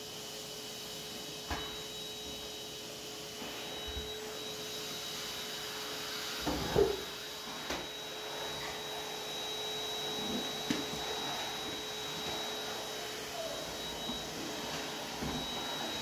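Henry cylinder vacuum cleaner running steadily with a constant whine, its floor tool working over a runner rug and the hardwood floor under it. A few short knocks of the tool and wand, the loudest about seven seconds in.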